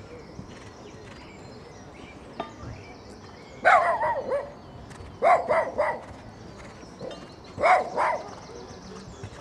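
A dog barking in three short bouts: one or two barks, then three quick barks, then two.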